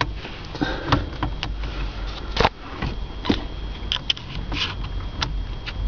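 Irregular clicks and light knocks of small parts being handled and worked loose in a Ford Explorer's steering-column shifter assembly.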